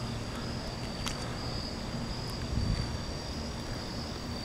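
Crickets chirping in a steady high-pitched pulsing chorus over a low, steady rumble of the night city, with a faint click about a second in.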